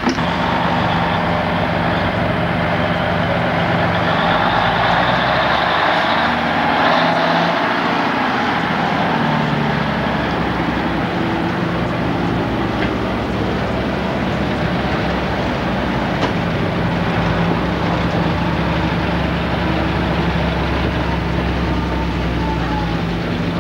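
Lorry engines running: a steady engine drone with a low rumble, its pitch shifting partway through as a vehicle moves off.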